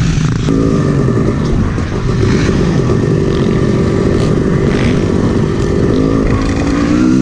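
Yamaha YZ 250cc two-stroke dirt bike engine running under way on a motocross track. The engine note shifts suddenly about half a second in, holds fairly steady, then rises in pitch near the end as the bike accelerates.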